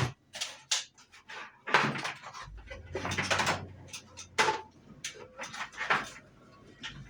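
A string of short, irregular rustles and knocks from tools and objects being handled and moved on a workbench, with a faint low hum through the middle.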